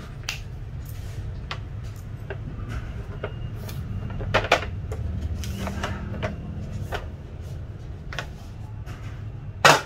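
Cardboard glove box being handled: scattered taps and scrapes as the inner tray slides out of its paperboard sleeve, with a sharper knock about four and a half seconds in and a louder one near the end, over a steady low hum.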